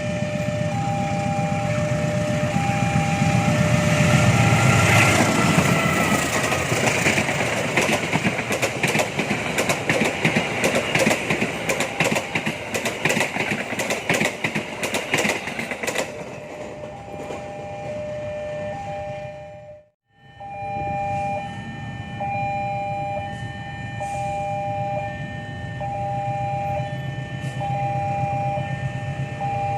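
A train passing with a heavy rumble and a fast clatter of wheels over rail joints. Under it, and again after a sudden cut about two-thirds through, a two-tone electronic warning alarm beeps on and off in a steady pattern, typical of a railway level-crossing alarm.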